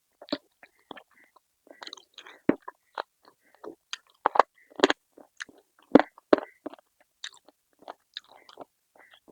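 A person chewing and biting food with their mouth open to the sound, giving irregular wet smacks and crunchy clicks several times a second. The loudest bites come around five and six seconds in.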